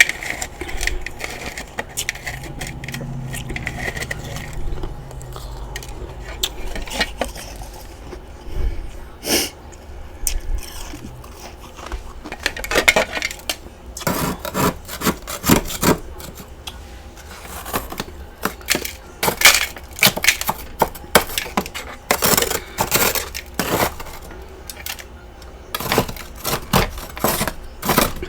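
Chunks of freezer frost being bitten and chewed: loud, irregular crunches, sparse at first and coming thick and fast from about halfway through.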